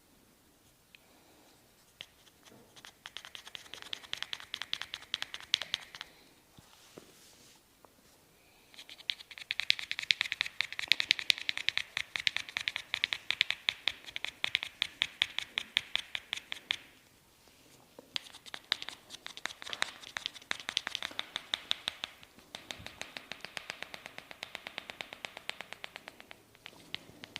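Fingers rubbing and twisting hair against the scalp close to the microphone: ASMR "hair cracking," a fast crackling run of dry clicks. It comes in four stretches of several seconds, with short pauses between them.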